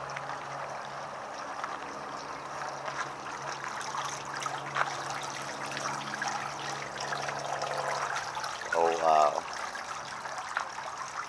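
Water trickling and bubbling steadily in a shallow stone bowl fountain fed from a central jet, with a steady low hum underneath. About nine seconds in, a short rising voice cuts briefly above the water.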